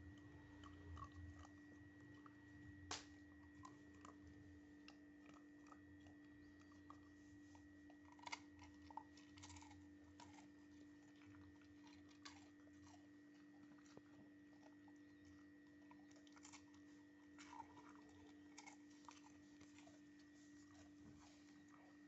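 Dog eating: faint, irregular clicks and crunches of chewing and biting, a few sharper ones among them, over a steady faint hum.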